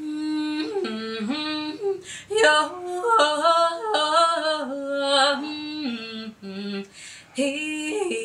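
A woman singing a melody of held notes that step up and down in pitch, in short phrases with brief breaths between them.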